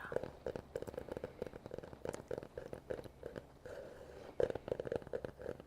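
Close-up clicks and light taps from handling plastic (acetate) eyeglass frames, many small irregular contacts one after another.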